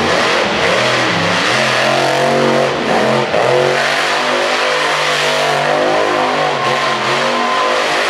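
Monster truck engine revving hard, its pitch rising and falling again and again as the truck spins donuts in the dirt.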